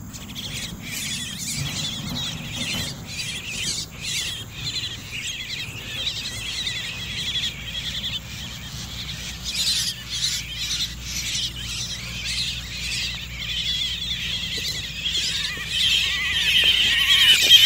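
Javan mynas squawking and screeching in rapid, harsh, repeated calls that grow louder near the end: the alarm and distress calls of mynas caught on glue sticks as they are pulled free and handled.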